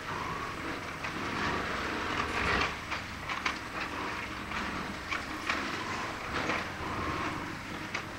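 Long-reach demolition excavators breaking up a concrete building: a steady machine noise under a busy, irregular clatter of knocks from crunching and falling concrete, sped up about four times.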